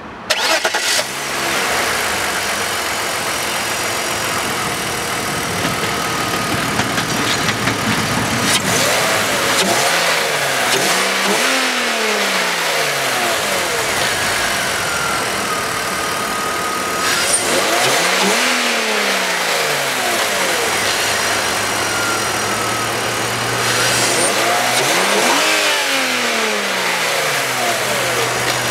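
2005 BMW X5 E53's engine running and revved three times, the pitch each time climbing and then falling back to idle.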